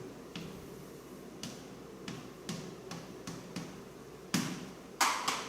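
Irregular light taps and clicks, about ten in all, with two sharper ones near the end.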